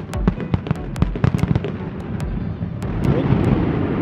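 Fireworks going off: a quick, uneven series of sharp bangs and crackling pops, giving way about three seconds in to a denser, steady rumbling wash.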